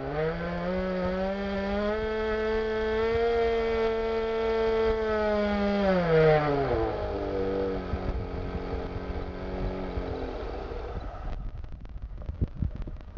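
Model Wankel rotary engine running with a spinning propeller and a loose muffler: its pitch rises just after the start, holds high for several seconds, then drops back to a lower, slower run. It cuts out near the end, leaving a few knocks and clicks.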